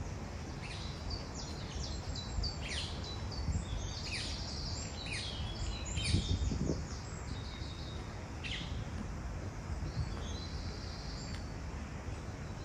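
Small birds chirping and singing outdoors, a quick run of short sweeping notes for the first several seconds, then a few scattered calls, over a steady low rumble of background noise; a low thump about six seconds in.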